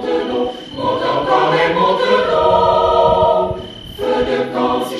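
A group of voices singing a French scout campfire song in chorus on long held notes, easing off briefly about four seconds in. Crickets chirp steadily in the background.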